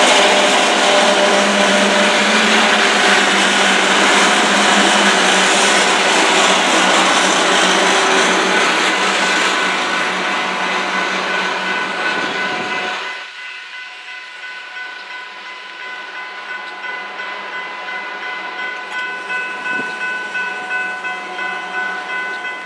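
CN freight train's tank cars rolling past over a level crossing, with the crossing bell ringing. About 13 seconds in the last car clears and the rolling noise drops away, leaving the crossing bell ringing steadily on its own.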